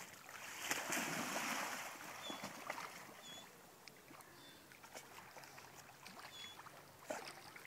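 Chocolate Labrador splashing as it wades into a creek and starts swimming: a burst of splashing in the first couple of seconds, then quieter water lapping as it paddles away.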